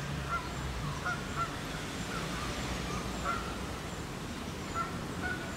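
Water birds calling on a pond: short, honking calls repeating every second or so, over a steady low rumble.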